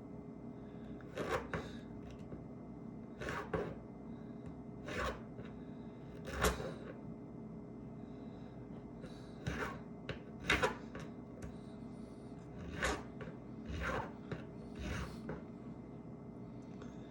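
Small hand tools scraping, prying and clicking against an iPhone's metal and glass parts in short, irregular strokes every second or two, over a steady low hum.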